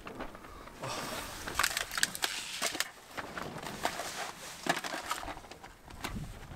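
Irregular crackling and rustling of things being handled close to the microphone, with scattered sharp clicks.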